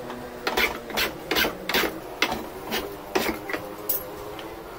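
A small stick of wood pushed again and again across the blade of an upturned hand plane, shaving its edge flat: about eight or nine short scraping strokes, roughly two a second, stopping shortly before the end.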